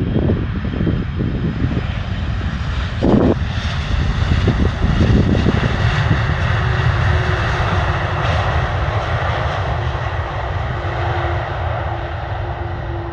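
Twin-engine jet airliner's engines during the landing rollout: a steady rumble under a rushing hiss that swells a few seconds in and slowly eases off, with a faint steady whine toward the end. Wind buffets the microphone in the first few seconds.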